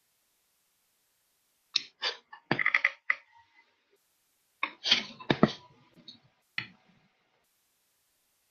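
Two short clusters of clicks and knocks over a web-conference microphone, the first about two seconds in and the second about five seconds in.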